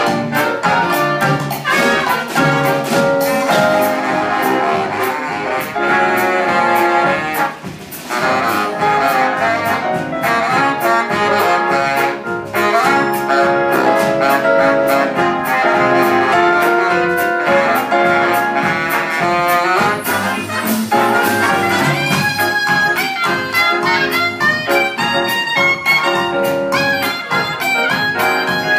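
Big band playing jazz live, with saxophones, trumpets and trombones over a drum kit, and a short break in the playing about eight seconds in.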